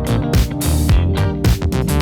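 Background music with a steady beat: an upbeat funk-style track with guitar and drums.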